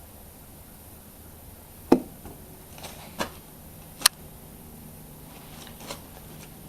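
A few sharp knocks and clunks from an oil jug and filler being handled while engine oil is added. The loudest comes about two seconds in, with smaller ones near three, four and six seconds.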